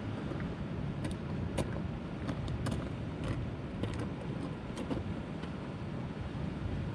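Outdoor wind buffeting the microphone as a steady low rumble, with a scatter of faint small clicks between about one and five seconds in.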